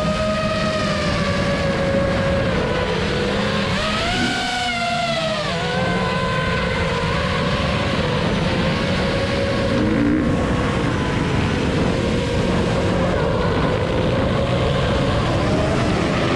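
FPV racing quadcopter's motors and propellers whining steadily. The pitch climbs about four seconds in and drops back a second and a half later, over a steady rushing noise.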